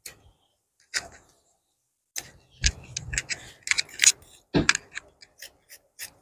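Scissors cutting printed fabric: a single snip, a short pause, then the cloth rustling as it is handled, with a few sharp clicks, and regular snips of about three a second near the end.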